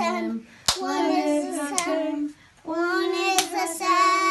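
Young girl singing a Passover song in two phrases with a short break between them, the second ending on a long held note. Three sharp claps fall during the singing.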